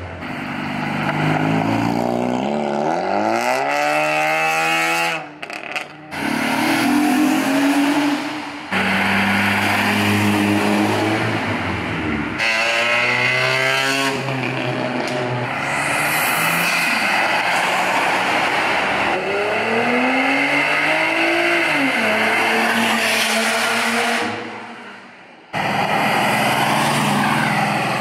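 Cars driving off one after another, engines and exhausts revving up in rising sweeps as they accelerate past, three clear pulls, with abrupt cuts between passes and steady engine and tyre noise in between.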